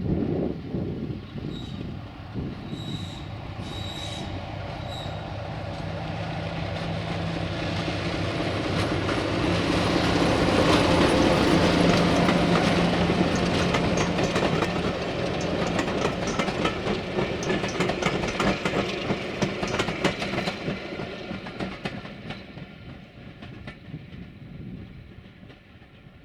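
Class 33 diesel locomotive with its Sulzer eight-cylinder engine passing with a train of coaches. The engine note and rumble build to a peak about halfway, then fade away as wheels click over the rail joints. A few short high squeaks come in the first few seconds.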